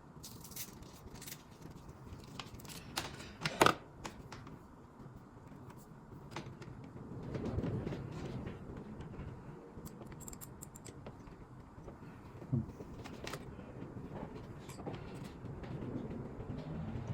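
Light scattered clicks and handling rustles as an inspection endoscope's cable is worked down the spark plug hole, with a sharper click about three and a half seconds in.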